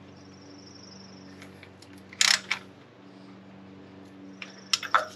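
Sharp metallic clicks and two short rattling scrapes, one about two seconds in and one near the end. They come from a Nissan KA24's newly fitted timing chain and sprockets being rocked back and forth by hand to take up the slack at the tensioner.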